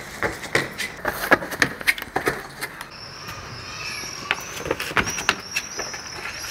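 Running footsteps on concrete paving, a quick series of short shoe slaps and scuffs at about three a second, ending as the runner springs up onto a stone wall. Faint high chirps repeat in the background from about halfway through.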